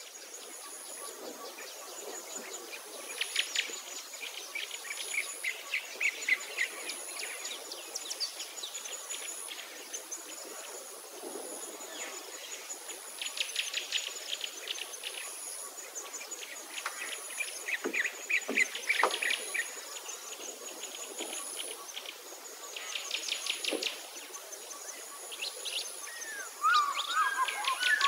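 Birds chirping and trilling in a busy chorus, with a high thin insect-like buzz that comes and goes in short spells. Louder, swooping bird calls come in near the end.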